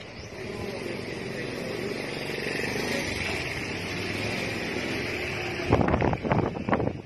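Steady motor drone that swells slightly and then holds, followed by a run of short, sharp knocks near the end.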